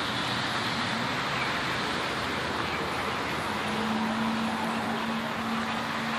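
Steady wash of rain and fast-flowing floodwater. A low steady hum joins it about halfway through and fades near the end.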